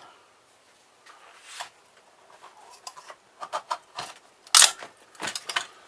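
Scattered clicks and knocks of plastic and metal filter parts being handled and worked at, with one sharper knock about four and a half seconds in and a quick run of clicks just after.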